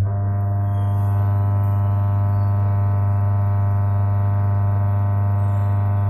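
Whirlpool White Magic 1-2-3 washing machine's drive motor, switched on at the start and humming steadily at a constant pitch while the technician checks a gearbox he has found jammed.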